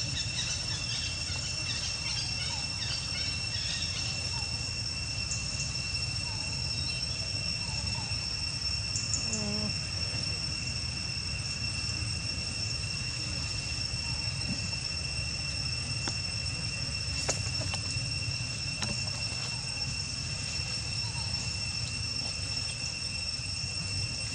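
A steady, high insect drone holding one pitch without a break, over a low constant rumble of outdoor ambience.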